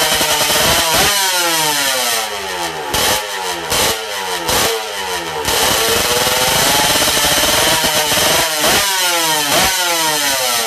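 Modenas Dinamik two-stroke engine breathing through a stage 2 modified expansion exhaust, blipped repeatedly: each sharp rise in revs is followed by a falling glide back down, several times in a row.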